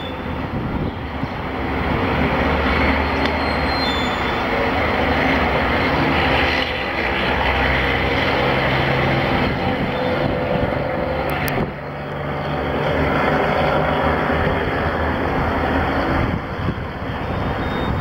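Steady vehicle noise with a low hum, broken abruptly twice along the way.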